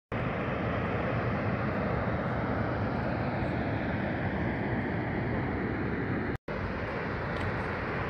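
Steady outdoor rushing noise, even and unbroken, with a split-second dropout about six and a half seconds in.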